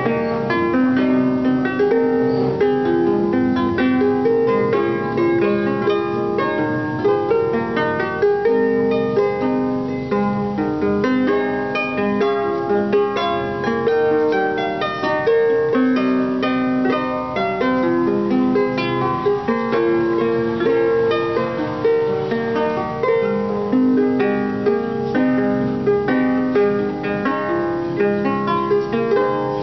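Wooden harp played by hand: a continuous tune of plucked notes, lower bass notes sounding under a higher melody.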